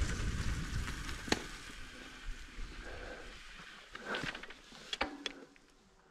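Wind rumble on the microphone dying away as a bicycle slows and rolls to a stop on a gravel track, followed by a few sharp clicks.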